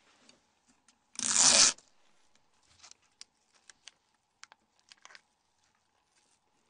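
A short tearing sound about half a second long, followed by faint scattered clicks and ticks.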